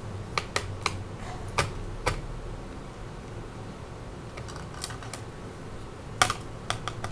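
Small sharp clicks and taps of a Phillips screwdriver on the screws holding a laptop's SSD, several in the first two seconds and a few more near the end.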